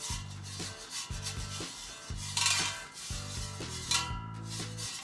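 A pastry brush dragged back and forth over the perforated plastic bottom of an air fryer basket, oiling it: a run of repeated rubbing strokes, roughly seven in five seconds.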